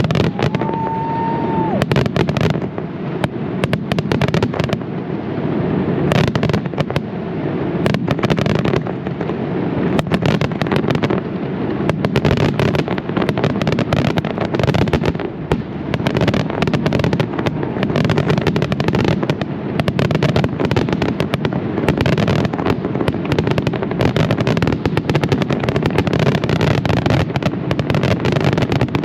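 Aerial fireworks display: shells bursting in rapid, dense succession over a continuous low rumble. A single steady whistle sounds for about a second near the start.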